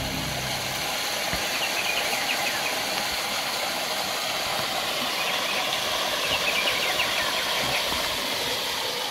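Steady rushing hiss of flowing river water.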